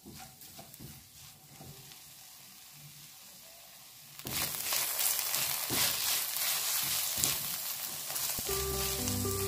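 Moringa leaves sautéing in a nonstick frying pan, stirred with a silicone spatula. Soft scraping and rustling at first, then from about four seconds in a loud, steady sizzle with the strokes of the spatula through it. Music comes in near the end.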